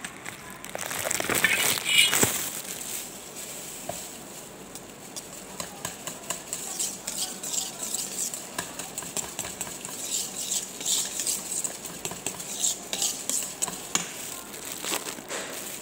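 A utensil stirring chocolate ice cream mix in a stainless steel pot, with repeated scrapes and taps against the metal, about two a second through the second half.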